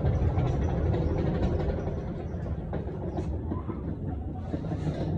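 Volvo truck running: a steady low engine rumble.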